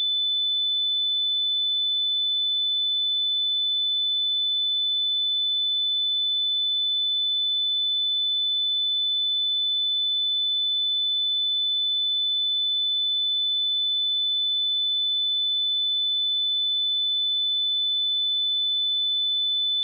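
A steady, unbroken 3505 Hz sine-wave test tone: a single pure high-pitched whistle at constant pitch and level, used to check speakers or headphones.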